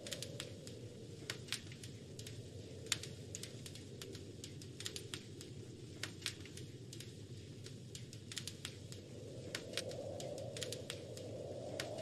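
Wood fire crackling with irregular sharp pops, over a low steady wind that grows louder near the end.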